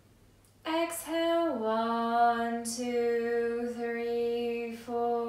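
A woman's voice intoning the breathing cue in a long, sung tone. It starts about half a second in, slides down in pitch, then holds level notes broken roughly once a second, as in a slow, chanted count.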